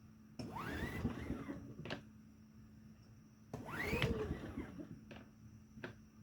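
Recoil pull-starter of a Powerhorse 2300i inverter generator yanked twice on choke, each pull a whir rising then falling in pitch and ending in a click as the handle snaps back. The engine does not catch.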